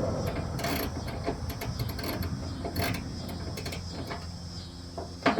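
Light, irregular clicks and rattles of parts being handled over a low steady hum, with a sharper click near the end.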